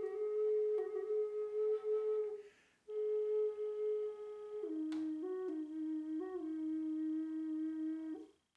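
Outro music: a slow melody of long held notes on a flute-like instrument, stepping between a few pitches, with a short break about two and a half seconds in. It stops shortly before the end.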